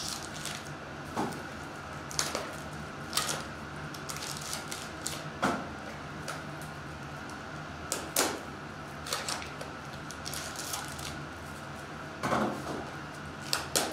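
Small cardboard trading-card boxes and foil-wrapped card packs being handled and opened, making scattered crinkles, taps and rustles.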